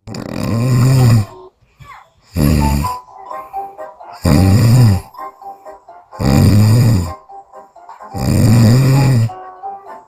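A sleeping woman snoring loudly: five heavy snores about two seconds apart, each with a pitch that rises and then falls.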